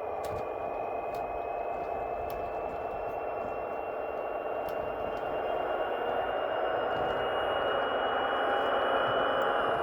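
Hornby TTS sound decoder in a model Class 43 HST power car playing its Paxman Valenta engine sound through a small bass reflex speaker as the train gets going. The engine sound builds slowly, with a high whine that rises gently in pitch, and a few sharp clicks are scattered through it.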